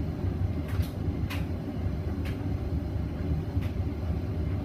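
Hoover Vision Dynamic washing machine drum turning a heavy blanket load out of balance ahead of its spin: a steady low rumble with a few light knocks.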